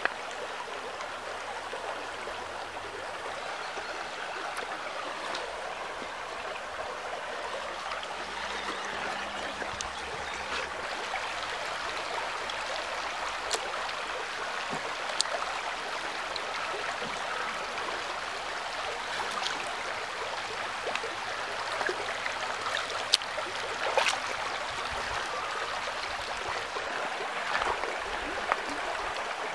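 Shallow stream running over stones, a steady burbling of water, with a few short sharp clicks and small splashes scattered through it, most in the second half.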